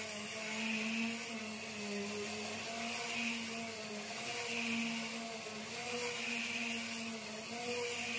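Random orbital sander running against a car fender, sanding body filler. A steady whir with a hiss that swells and fades every second or two as the pad is worked over the panel.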